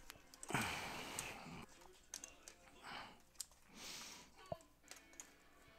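Quiet hand-handling noises: a few soft rustles and several light, sharp clicks from wire and small parts being handled.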